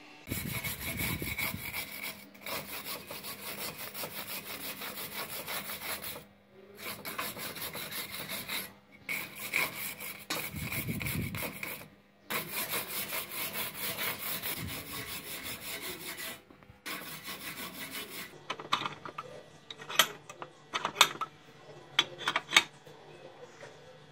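Steel wire brush scrubbing rust off an old chain, in fast scraping strokes that run for a few seconds at a time with short pauses between. Near the end the scrubbing stops and several sharp metallic clinks follow.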